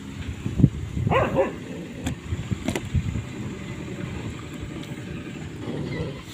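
A dog whines briefly, a short sliding cry about a second in, followed by a few light knocks.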